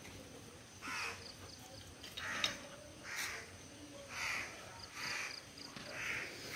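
A bird calling over and over: about seven short calls, roughly one a second, with a sharp click about two and a half seconds in.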